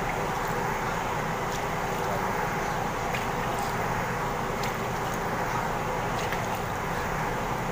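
Water being poured from a metal can into a large plastic basin, one canful after another, splashing into the liquid already there, over a steady background hiss, with a few faint clicks of the can.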